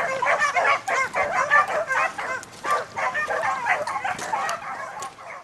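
A pack of beagles baying in full cry as they run a rabbit's scent trail, many voices overlapping, tapering off near the end.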